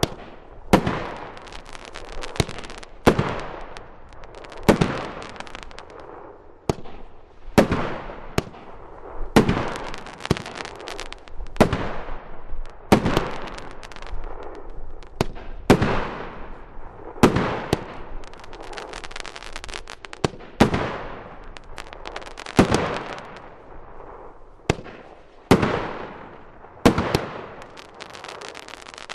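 A 30-shot firework cake, Stealth Fireworks Air Force, firing shot after shot, one about every two seconds. Each shot is a sharp bang followed by about a second of dense crackling as the stars break into crackles.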